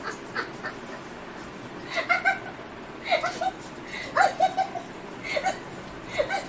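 A woman laughing helplessly while being tickled: about five bouts of high-pitched giggling, each a quick run of short pulses, the loudest about four seconds in.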